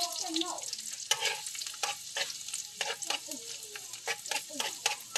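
Chopped garlic sizzling in hot oil in an aluminium wok, a steady hiss broken by sharp pops and clicks several times a second.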